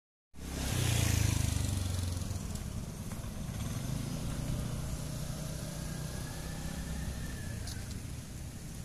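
Low rumble of motor-vehicle engine traffic, loudest about a second in and then steady.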